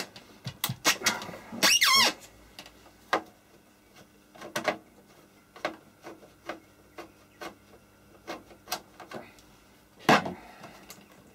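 Screwdriver working the screws of a Tektronix 2445A oscilloscope's rear panel: a short wavering squeak about two seconds in, then small scattered clicks of the tool and screws on the case, with a sharper knock near the end.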